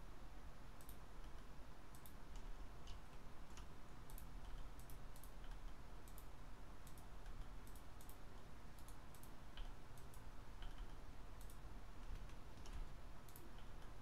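Computer mouse buttons and keyboard keys clicking, short sharp clicks at an irregular pace of about two or three a second, over a faint steady low hum.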